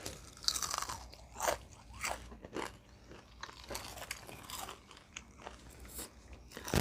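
Close-up biting and chewing of crispy Popeyes fried chicken skin: a series of irregular crisp crunches and crackles, the loudest in the first few seconds.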